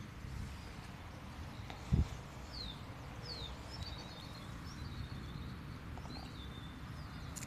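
Outdoor natural ambience: small birds calling, two quick downward chirps a little after two seconds in, then a twittering run of calls, over a steady low rumble. A single short low thump about two seconds in.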